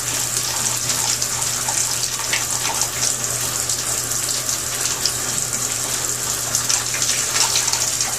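Shower running, a steady hiss of water spray.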